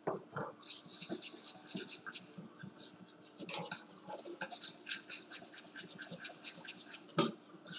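A mixing utensil stirring crepe batter in a mixing bowl: a rapid, uneven run of short scratching strokes against the bowl, with one sharper knock near the end.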